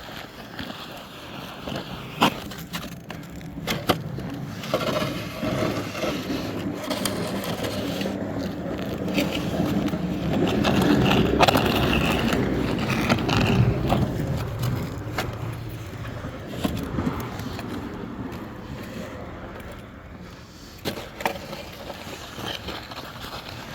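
Snow shovel scraping and knocking on the pavement, stroke after stroke. A vehicle engine grows louder through the middle and then fades away.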